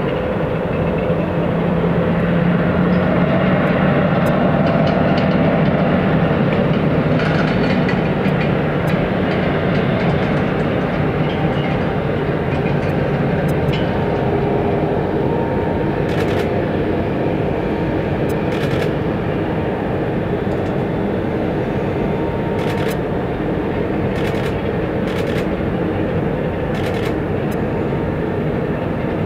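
Steady rumble and whine of jet aircraft at an airport, with a low hum underneath. A few short sharp clicks come in the second half.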